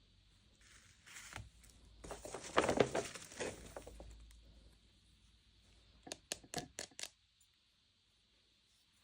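Packaging being crinkled and torn open in a dense crackling stretch, followed by a quick run of about five sharp clicks.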